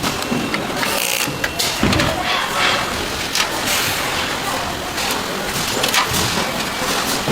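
Factory-floor machinery running, with irregular sharp metallic clicks and knocks over a steady noise.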